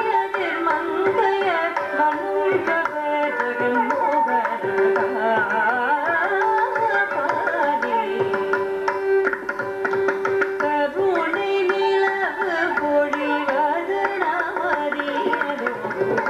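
Carnatic classical music: a woman's voice and violin carry a gliding, ornamented melody over a steady drone, with mridangam strokes keeping the rhythm.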